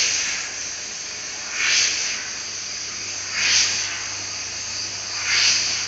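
CNC laser cutting machine cutting sheet metal: a steady hiss of the cut and its gas jet, swelling into a louder hiss about every two seconds, over a faint steady low hum.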